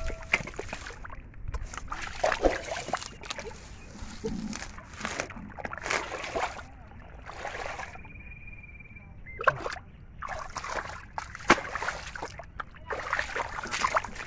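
Shallow muddy water splashing and sloshing in a run of irregular splashes as hands and legs churn through it and the mud.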